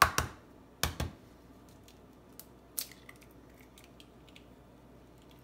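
Eggs being cracked against the rim of a dish: two sharp knocks in the first second, then a few faint clicks.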